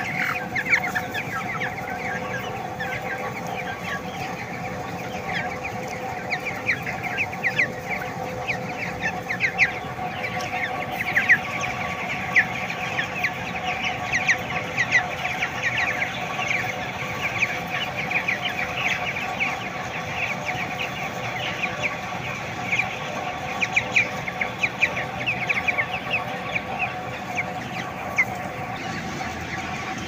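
A large flock of three-week-old broiler chickens peeping and chirping without pause, many short high calls overlapping, over a steady hum.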